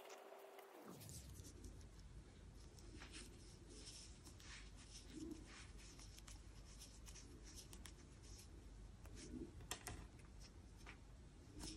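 Near silence with faint, scattered scratchy rustles and small clicks of yarn being worked with a crochet hook.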